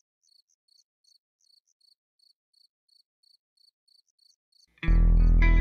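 Faint, steady cricket chirping, a little over two chirps a second. About five seconds in, loud band music with electric guitar cuts in.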